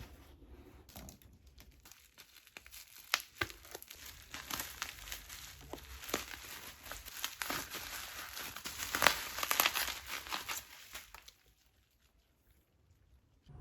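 Crinkling and rustling, as of material being crumpled and handled, with many irregular sharp crackles. It grows busier toward nine seconds in, then stops at about eleven seconds.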